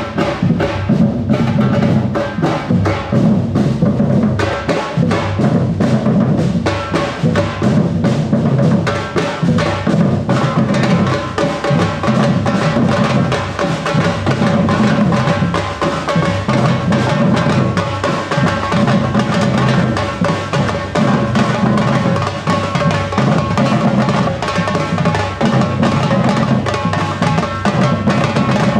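Afro-Brazilian percussion ensemble playing a steady, loud groove: deep bass drums pulse beneath fast, dense strikes from higher-pitched drums and percussion.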